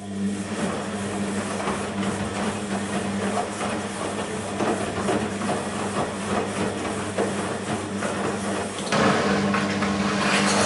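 BEKO WMB 51441 front-loading washing machine running mid-cycle: a steady low motor hum with water sloshing and rattling in the drum. About nine seconds in, it gets louder and more hissy.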